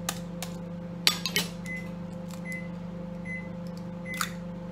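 Microwave oven running with a steady hum, with faint short high blips repeating less than a second apart. Over it, an egg is cracked into a microwave egg pot: a few sharp taps and clicks about a second in and another click near the end.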